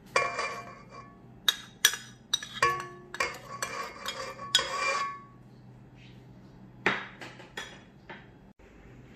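A spoon and bowls clinking and knocking against a stainless steel mixing bowl as flour and other dry ingredients are tipped and scraped in. The clinks ring briefly and come in a close run through the first five seconds, then a few more near the end.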